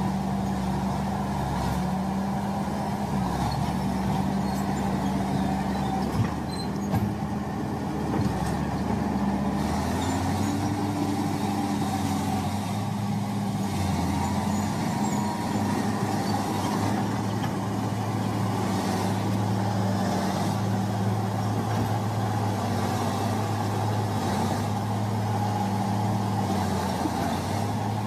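Heavy diesel engines of a crawler bulldozer and a loaded log truck running steadily under load as the dozer pushes the truck. The engine note changes about ten seconds in.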